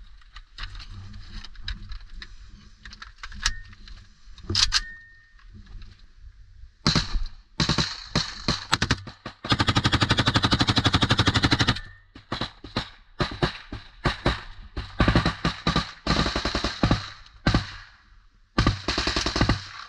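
Automatic rifle fire from a trench firing position. Scattered, fainter shots come first. About seven seconds in, close fire begins, including one unbroken rapid burst of roughly two and a half seconds, followed by repeated short bursts.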